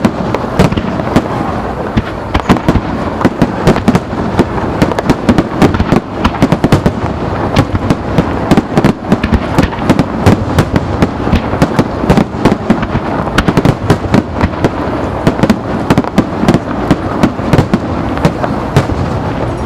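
Star mine fireworks barrage: shells fired in rapid succession, many sharp bangs a second over continuous crackling, with no letup.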